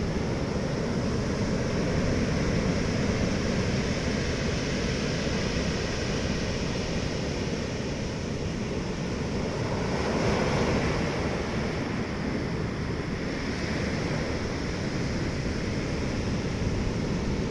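Sea waves breaking and washing ashore in a continuous rush, with wind on the microphone; a wave surges louder about ten seconds in.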